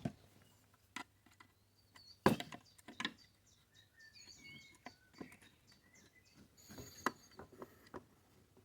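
A few faint, scattered clicks and taps of pliers and small metal clips on a chainsaw's carburettor throttle linkage being worked loose by hand, with faint birdsong chirping behind.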